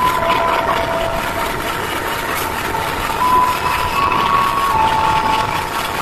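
Diesel engine of the CC204-05 diesel-electric locomotive running steadily, heard close beside its engine hood, with a thin whine that steps up and down between a few pitches.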